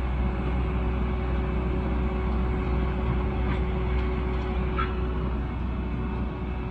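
Heavy diesel engine running steadily: a deep, even rumble with a steady hum over it, and two faint knocks about three and a half and five seconds in.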